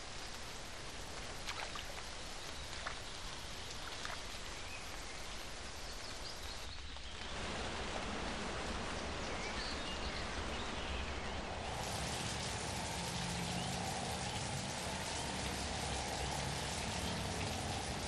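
Steady rain falling, an even patter of drops that grows louder about seven seconds in.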